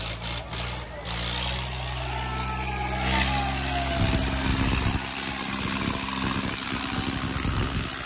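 Swaraj 855 FE tractor's diesel engine revving up and then running hard under heavy load as it pulls against another tractor in a tug of war. A quick ticking in the first second gives way to the steady engine note, a high hiss joins about three seconds in, and from about four seconds the engine pulses heavily as it labours.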